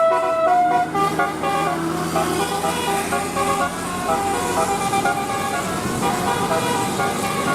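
Bus 'telolet' horn, a set of musical air horns playing a quick tune of short notes, over the bus's engine running.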